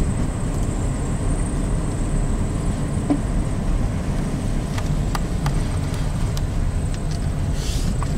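A car driving slowly, with a steady low rumble of engine and tyres and a few faint ticks.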